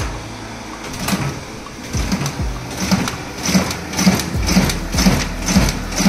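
Riso CV3230 digital duplicator (stencil printer) starting a print run on thin yellow paper, its feed and drum cycling with a rhythmic stroke per sheet that quickens over the first few seconds and settles at about two sheets a second.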